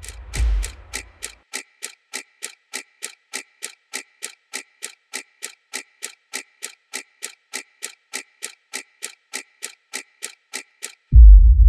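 Steady clock-like ticking sound effect, about three ticks a second, after a short whoosh at the start. Near the end a loud, deep low rumble cuts in suddenly.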